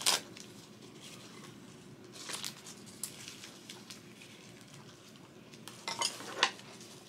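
Sparse light clicks and crackles of eating at the table, from chopsticks and crisp dried seaweed (gim) being handled, over quiet room tone, with a short cluster of crackles about six seconds in.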